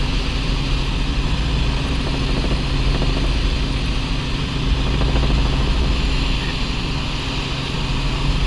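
Helicopter in level cruise heard from inside the cabin: engine and rotor running steadily, a strong low hum under an even hiss.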